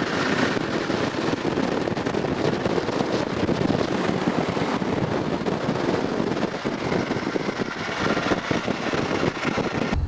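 Sports cars driving on a race circuit, heard from trackside as a rough, steady noise without a clear engine note.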